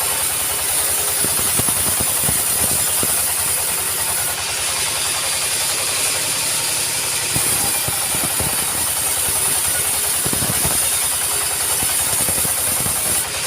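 Sawmill machinery running steadily: a rapid, even engine pulse under a loud high hiss that changes about four seconds in and again about seven seconds in.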